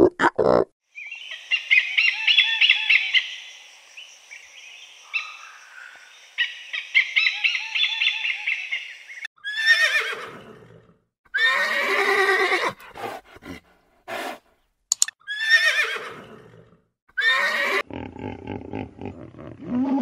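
Horses whinnying: about five separate neighs, each falling in pitch, in the second half. Before them comes a different high, rapidly pulsing animal call, and near the end a low, rhythmic grunting starts.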